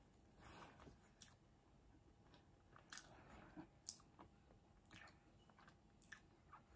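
Faint close-miked chewing of food: soft crunches and small mouth clicks at irregular intervals.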